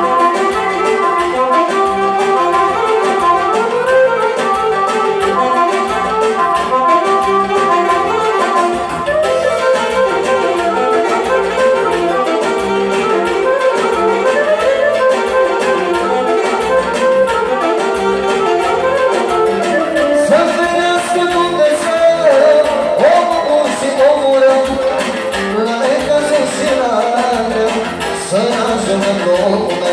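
Live band music played over PA speakers: a saxophone and an accordion play the melody, and a man sings into a microphone in the later part.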